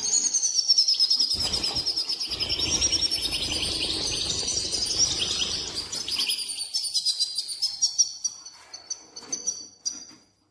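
European goldfinch giving the rapid, high twittering 'batbata' call used to bring birds into breeding condition. The call is dense for about six seconds, then thins to scattered chirps and fades near the end, with a low rumble underneath the dense part.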